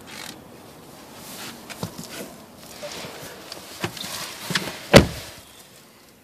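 Someone climbing into a car's driver's seat: rustling and several small knocks, then a heavy thump about five seconds in as the 2014 Buick LaCrosse's driver's door shuts.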